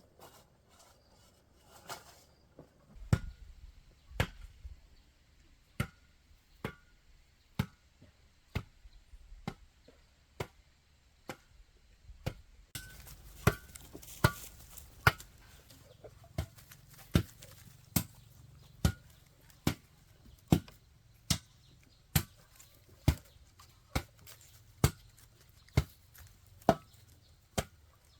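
Chopping with a blade, one sharp stroke a little under every second in a steady rhythm, starting about three seconds in.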